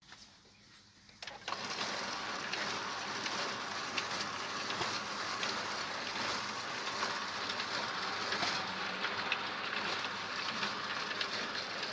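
Small Soviet-era sheet-fed printing press starting up about a second in, then running with a steady, rapid mechanical clatter as it feeds and prints sheets, run without ink.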